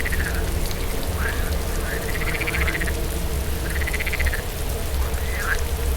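Frogs croaking in a series of pulsed calls that rise and fall in pitch, about five in a row, over steady rain and a low wind rumble.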